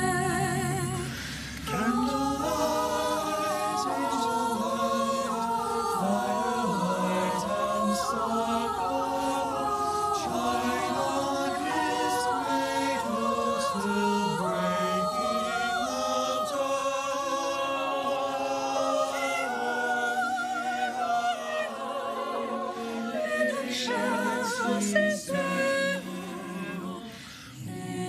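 Mixed-voice high school madrigal choir singing a cappella in close harmony, with wavering held notes; a short break in the singing about a second and a half in, and the sound thins briefly near the end.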